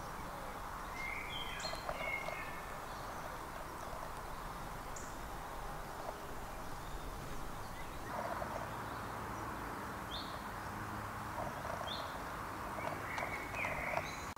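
Woodland ambience: a steady background hiss with scattered short bird chirps and calls, several of them near the start and near the end. A few soft rustles and ticks in dry leaf litter come in the second half.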